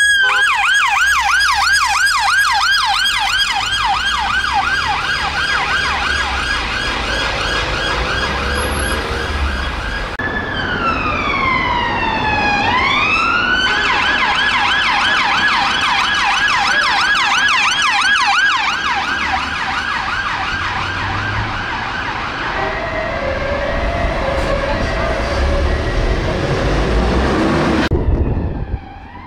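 Emergency-vehicle sirens on a fast yelp: first an ambulance response car's, then, after a cut about ten seconds in, a police car's siren that sweeps slowly down and back up once before going back to the fast yelp. Road and engine rumble runs underneath.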